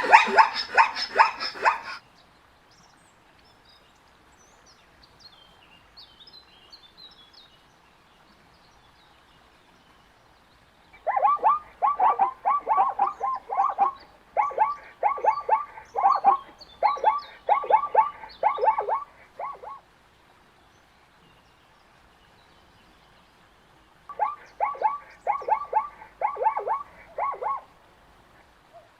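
Zebra calling: a short loud bark at the start, then long runs of rapid, repeated barking yelps, several a second, from about eleven seconds in and again near the end. Faint bird chirps are heard in the quiet gap between calls.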